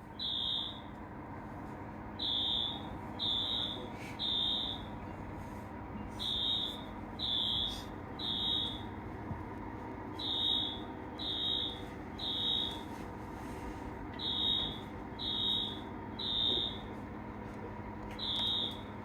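Fire alarm beeping loudly at a high pitch in the temporal-three evacuation pattern: three beeps about a second apart, a pause, then three more, repeating every four seconds or so. Here it is a false alarm.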